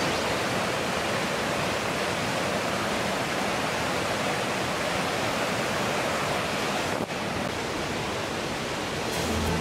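Whitewater rushing over rocks in a mountain stream, a steady even rush with a brief drop about seven seconds in. Music comes in near the end.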